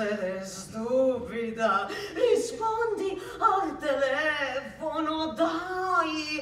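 A woman's voice in short, wordless phrases whose pitch slides up and down, close to singing.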